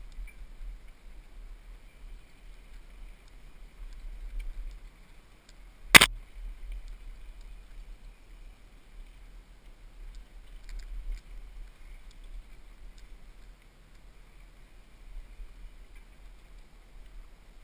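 Low, steady rumble of a mountain bike rolling over a dirt trail, picked up by a chest-mounted camera, with one sharp knock about six seconds in and a few light rattling ticks later.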